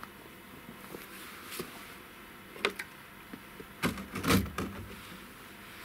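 Plastic and metal front cover panel of a Hitachi ZW40 wheel loader being handled and pushed shut: a few sharp clicks, then a cluster of knocks and a heavy thump about four seconds in.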